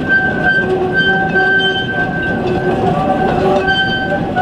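A train of loaded narrow-gauge peat wagons rolling past, the wheels rumbling steadily on the track with high squeals at several pitches that come and go.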